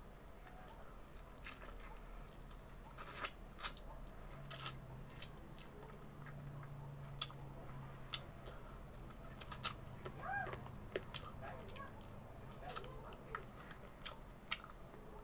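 A person chewing a mouthful of rice and chicken eaten by hand, close to the microphone, with short sharp clicks and smacks at irregular intervals.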